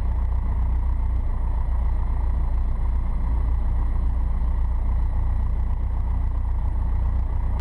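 Piper Cherokee's piston engine running steadily, a constant low drone heard inside the cockpit.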